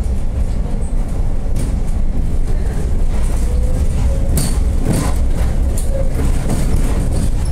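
PCC series 7900 tram running with a steady low rumble, and a cluster of sharp clicks about four and a half to five seconds in.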